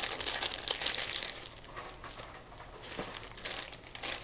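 Clear plastic bag crinkling as it is handled and squeezed, busiest in the first second or so, quieter in the middle, and picking up again near the end.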